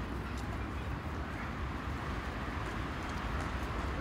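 Steady hum of city road traffic, with a low rumble underneath.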